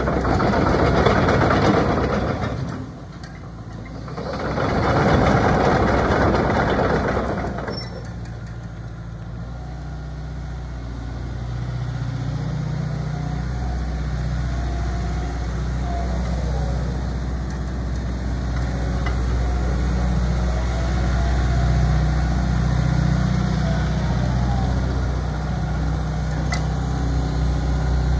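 Hyundai Robex 14-ton excavator's diesel engine idling with a steady low hum. In the first seven seconds two loud stretches of rushing, hissing noise lie over it. The engine sound grows fuller about halfway through.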